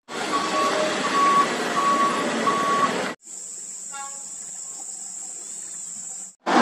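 A reversing alarm beeps four times at one steady pitch, about three-quarters of a second apart, over loud heavy-truck engine and road noise. About three seconds in the sound cuts to a much quieter scene with a steady high-pitched insect drone.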